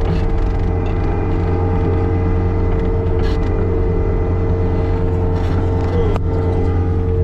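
Tractor engine running steadily while pushing snow with a front loader bucket, with a single sharp click about six seconds in.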